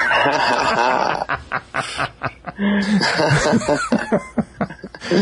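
Laughter in breathy, quick repeated bursts.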